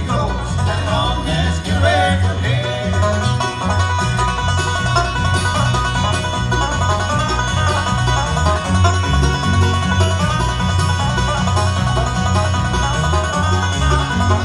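Live acoustic bluegrass band of banjo, guitar, mandolin and upright bass playing a driving up-tempo tune. A sung line at the start gives way to an instrumental break led by the five-string banjo.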